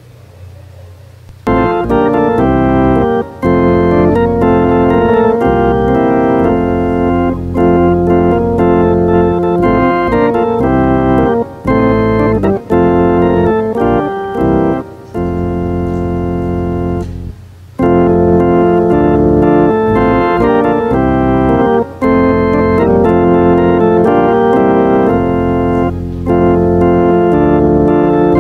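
Church organ playing slow, sustained chords over a held low bass. It starts about a second and a half in, with short breaks between phrases.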